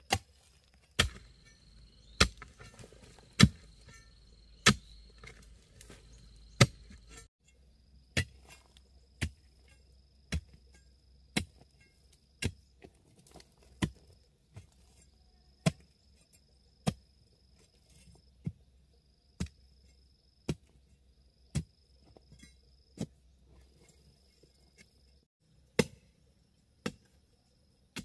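A hand tool striking with sharp chopping strokes at a steady pace of about one a second, the first few hardest. A steady high insect shrill runs behind it.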